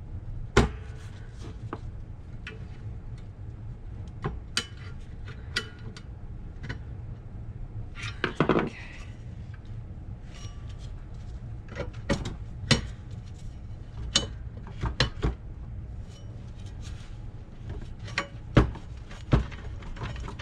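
Hand tools and steel parts of a Rolls-Royce Phantom III front brake backing plate clinking and knocking as they are worked apart: scattered sharp metallic clinks, with a longer rattle about eight seconds in, over a steady low hum.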